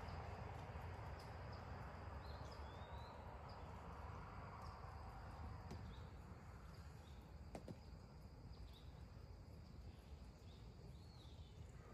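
Quiet outdoor ambience: faint, scattered bird chirps and a steady high insect drone over a low rumble, with a couple of faint clicks.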